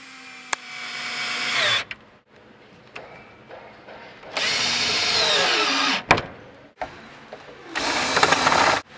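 Makita cordless drill-driver driving screws up into the underside of a work surface, in three separate runs. The motor's pitch sags near the end of the first two runs, and there is a sharp click just after the second.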